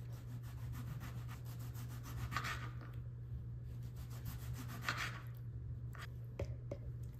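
A kitchen knife sawing through a tomato on a plastic cutting board: quick, fine rasping strokes, with two louder rasps about two and a half and five seconds in, and a few light taps of the blade on the board near the end.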